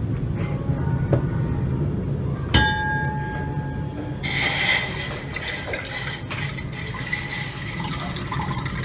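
A steel kitchen vessel clinks once with a short ringing note about two and a half seconds in. Then water is poured from a cup into an empty steel saucepan for about four seconds, a steady splashing.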